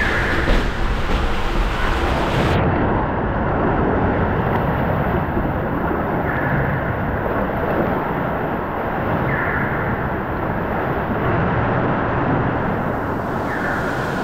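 Water rushing and rumbling through an enclosed water-slide tube as a rider slides down it. About two and a half seconds in the sound changes abruptly to a steady rush of water pouring out of the tube's mouth into the splash-down pool.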